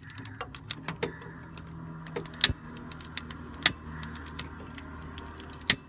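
Gas flame hissing steadily while it heats a heat-shrink sleeve on the car door's rattling part, with scattered sharp clicks, the loudest about two and a half seconds in and near the end.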